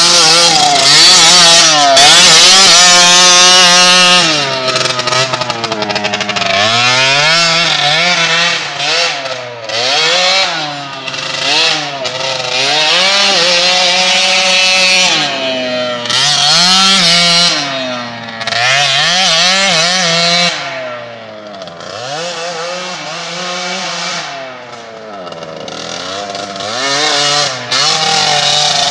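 DRR 90 youth quad's small engine revving up and down over and over, its note rising and falling with each throttle change. Loudest in the first few seconds, it fades as the quad moves away and grows again near the end.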